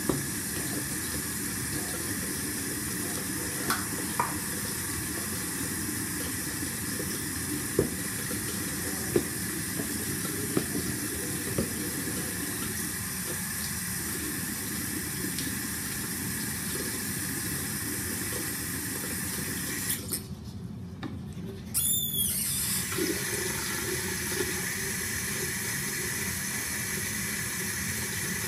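Bathroom tap running into a sink while toothbrushes are rinsed, with a few sharp knocks. The water stops for about two seconds some twenty seconds in, then runs again.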